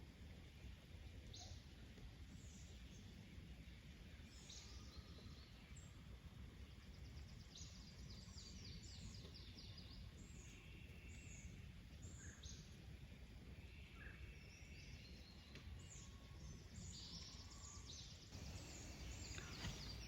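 Faint outdoor ambience: small birds chirping and giving short rapid trills now and then over a low, steady background rumble.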